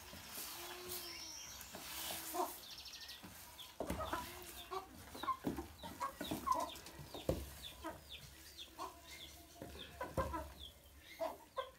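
Chickens clucking repeatedly with short, high, falling calls, over a few knocks of a wooden spoon stirring leaves in a metal cooking pot.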